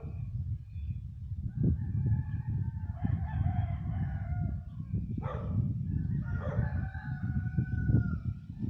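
A rooster crowing twice, each crow a long call of about two seconds, the first starting about a second and a half in and the second about six seconds in, with a short sharp sound between them, over a steady low rumble.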